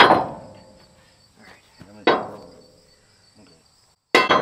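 Three hammer blows on the steel hitch frame under a truck, about two seconds apart, each a sharp metallic strike that rings out briefly.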